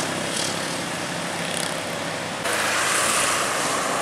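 Road traffic: truck and motorcycle engines and tyre noise as a steady rush, which changes suddenly about two and a half seconds in as the sound switches to another truck.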